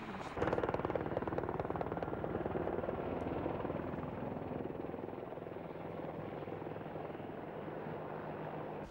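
UH-60 Black Hawk helicopter running, its rotor beating rapidly and steadily. It comes in suddenly just after the start, is loudest in the first couple of seconds, then eases slightly.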